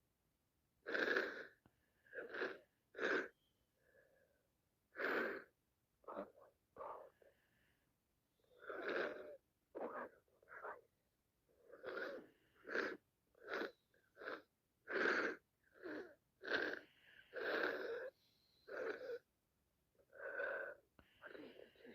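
A woman with sinusitis sniffling through a congested nose, about twenty short wheezy sniffs and breaths in steady succession, some with a thin whistle.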